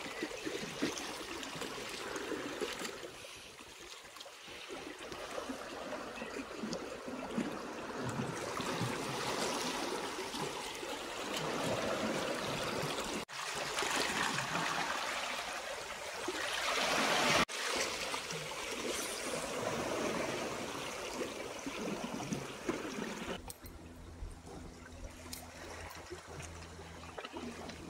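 Sea water washing and splashing against rocks, surging louder and softer; it turns quieter near the end, with a faint steady hum underneath.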